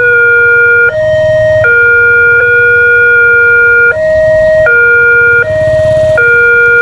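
Railway level-crossing warning siren sounding a two-tone alarm that alternates between a higher and a lower pitch. The switching is uneven, with one tone held for over two seconds and others for under one. The uploader calls this siren faulty ('error').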